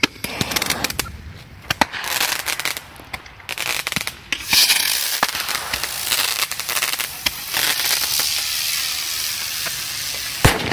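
Gyrojet spinning flyer firework: irregular crackles and clicks as the fuse is lit, then about four seconds in the flyer ignites with a steady rushing hiss as it climbs. It ends in a sharp, loud bang near the end.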